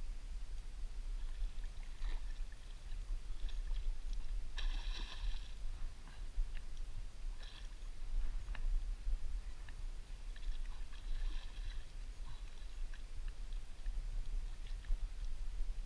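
Hooked carp splashing and swirling at the water's surface as it is played in close to a landing net, in short scattered bursts, the biggest about five seconds in, over a steady low rumble.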